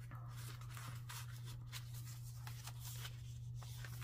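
Soft paper rustling and light taps as the card pages of a handmade junk journal are handled and a page is turned over near the end, over a steady low hum.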